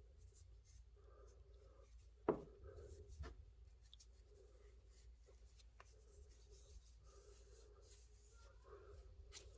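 Faint rhythmic rubbing as a pocketknife blade is polished by hand, roughly one stroke a second. A sharp click about two seconds in, the loudest sound, and a softer knock about a second later.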